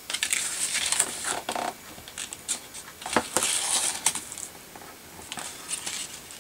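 Double-sided tape being pulled off its roll and pressed down along a strip of patterned paper: irregular bursts of crackly, papery rustling, the longest lasting about a second, a little after the three-second mark.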